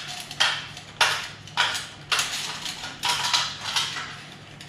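New coiled resistance wire for an electric furnace heating element rattling and scraping against the metal rack and ceramic insulators as it is fed through by hand, in a run of short jingling scrapes about two a second.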